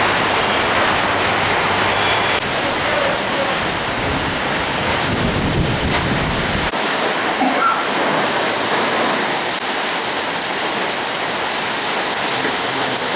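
Rain pouring down, a steady loud hiss of rain on surfaces.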